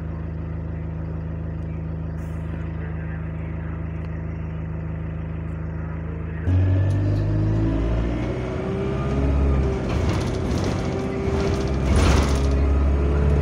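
Diesel engine of an Alexander Dennis Enviro200 single-decker bus idling steadily, heard from inside the passenger saloon. About six and a half seconds in it suddenly gets louder and the bus pulls away, the engine note rising, dropping back at a gear change and rising again.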